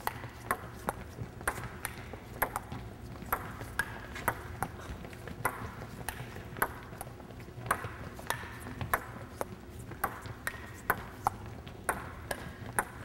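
Table tennis rally: a ping-pong ball clicking back and forth off the paddles and the table, a steady run of about two to three sharp ticks a second.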